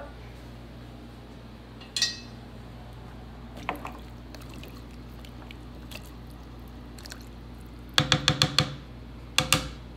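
A hand mixing chicken, vegetables and water in a roaster pan: wet sloshing and squishing. A sharp sound comes about two seconds in, and a quick run of about six sharp splashes or knocks comes near the end, followed by two more.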